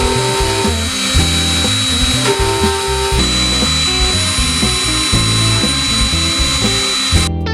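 X-Carve CNC router's spindle running and carving, a steady high whine over a hiss, with background music underneath. The machine sound cuts off sharply near the end, leaving only guitar music.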